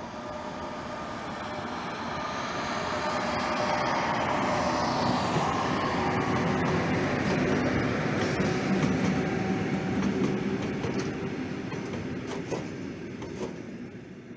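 Freight train of tank wagons rolling past on the rails: the rumble and wheel clatter build up, are loudest in the middle as the wagons go by, and fade as the last wagons pass, with a few sharp clacks near the end.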